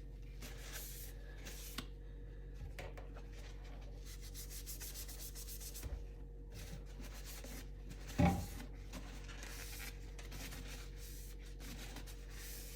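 Sponge scrubbing a steel knife blade with Bar Keepers Friend powder and barely any water: repeated gritty rubbing strokes. A brief louder sound about eight seconds in.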